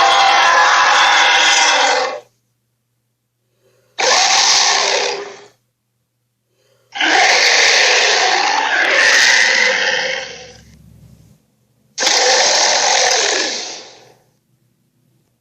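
Cartoon Tyrannosaurus 'Sharptooth' roar sound effects: four harsh, loud roars, each one to three seconds long, separated by dead silence. The third is the longest and trails off slowly.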